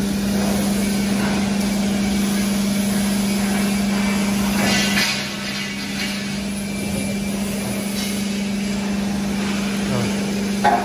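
Hydraulic pump unit of a CNC hydraulic plate rolling machine running with a steady hum, over workshop machinery noise. A brief louder sound comes near the end.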